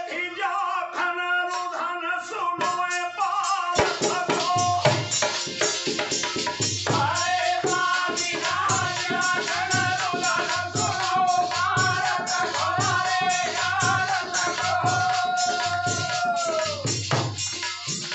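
Indian folk devotional music: harmonium melody over a two-headed hand drum (dholak) and jingling metal percussion. About four seconds in the drumming turns dense and fast under long held harmonium tones, and near the end a held note falls away.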